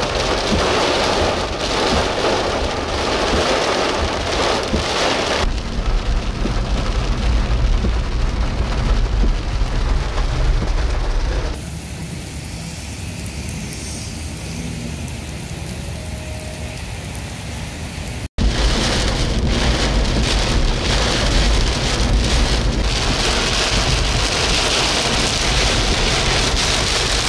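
Heavy rain and strong wind of a severe thunderstorm, as a steady loud rush with deep rumbling. About halfway through it drops to a quieter, even patter of rain on a wet street. After a brief break it comes back loud as heavy rain on a car's windshield while driving.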